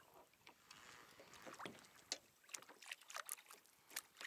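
Water lapping and slapping faintly against a plastic kayak's hull, heard as irregular small clicks and splashes that come thicker in the second half.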